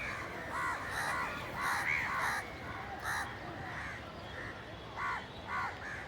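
Several crows cawing: short, harsh calls overlapping and following one another in quick succession, loudest about two seconds in.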